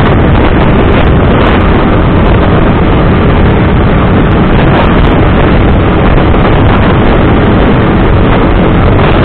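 Wind rushing over the camera microphone of a motorcycle riding at road speed, with engine and tyre noise mixed in underneath. Loud and steady throughout.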